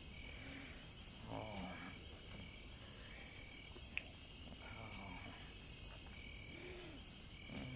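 Night chorus of insects: a steady high trill with a short chirp repeating about every second and a half. A single sharp click about four seconds in.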